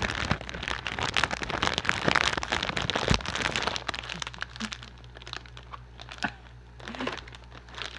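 Crinkly plastic snack bag handled right up against the microphone, a dense crackling, followed by sparser crunches of a crisp snack being bitten and chewed.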